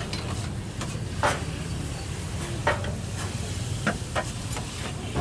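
Shawarma chicken being stirred and mixed with metal utensils on a hot griddle: irregular sharp metallic clacks, about half a dozen, over a steady sizzle and low rumble.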